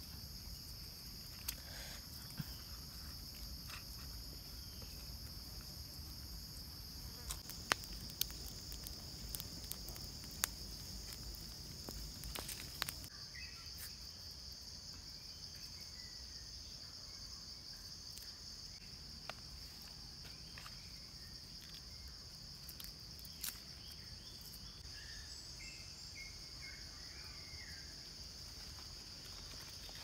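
A steady, high-pitched insect chorus drones throughout. A few sharp clicks or snaps come in the first half, and faint short chirps appear later.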